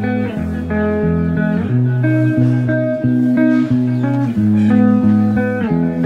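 Background instrumental music: a plucked-string melody moving note to note over a steady bass line.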